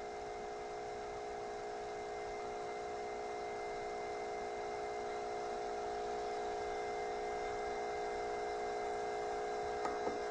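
Steady electronic hum from a microphone's sound system: several held tones over a light hiss, growing slowly louder, with two faint clicks near the end.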